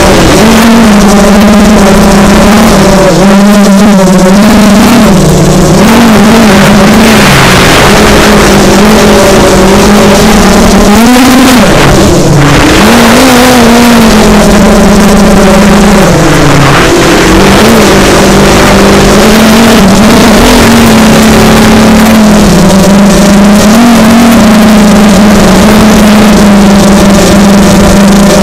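FPV freestyle quadcopter's brushless motors and propellers buzzing, heard from the camera on board, the pitch rising and falling with the throttle and dropping briefly a little past halfway, over a rush of air.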